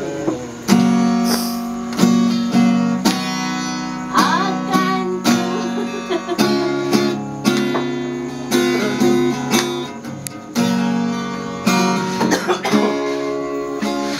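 Acoustic guitar strummed by hand, chords struck in a steady rhythm about once a second and left to ring.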